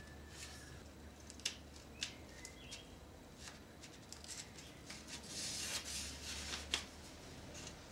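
Faint clicks and light scraping and rustling from a slim, sharp knife being worked at the graft of a young apple tree, paring away bark to expose the cambium. There are a few sharp clicks, the clearest about one and a half and two seconds in, and a brief rustle between about five and six and a half seconds in.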